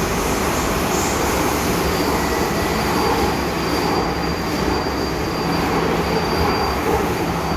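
MTR M-Train electric multiple unit running at speed, heard from inside the passenger car: a steady rumble of wheels on rail, with a faint high-pitched tone from about two seconds in until near the end.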